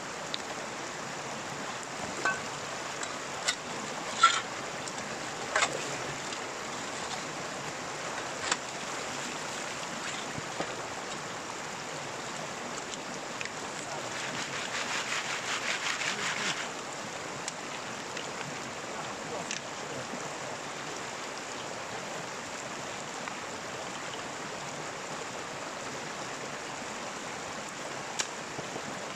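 Stream water running steadily, with a few sharp knocks early on and near the end, and a louder rough, rattling patch of about two and a half seconds just after the middle.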